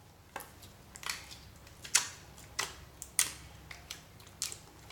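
Translucent slime pressed and kneaded by hand, giving a string of sharp pops and clicks, about one every half second, loudest about two and three seconds in.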